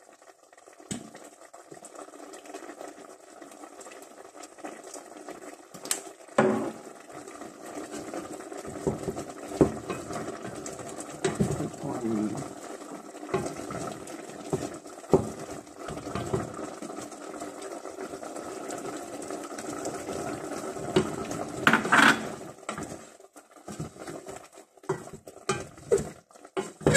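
A wooden spoon stirs a steaming stainless-steel stockpot, knocking and scraping against the pot now and then, over a steady cooking hiss from the pot. The loudest knock-and-scrape comes about 22 seconds in.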